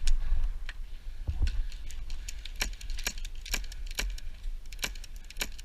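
A series of sharp clicks or snaps, about two a second, starting a couple of seconds in, over a low rumble.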